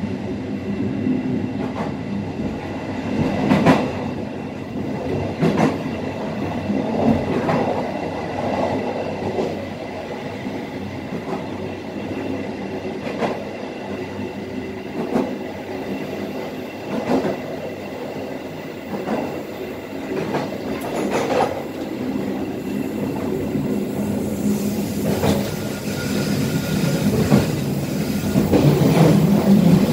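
Passenger train running on the line, heard from the rear of the last carriage: steady rumble and rattle of wheels and carriage, irregular sharp clacks over rail joints, and a thin steady squeal from the wheels. The noise grows louder near the end.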